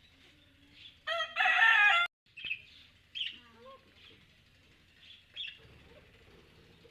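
A bird gives one loud, rooster-like crow about a second in, lasting about a second, followed by a few short chirps.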